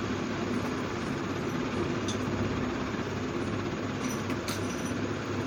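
Steady low background rumble with a faint hum, broken by a few faint clicks about two and four seconds in.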